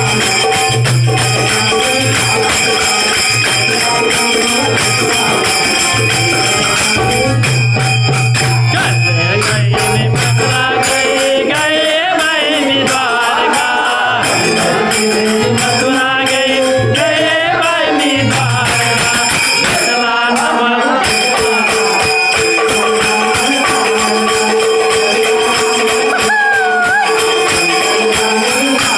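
Bhajan music: a dholki drum and jingling hand percussion keep a steady rhythm, with a male lead voice singing through the middle stretch.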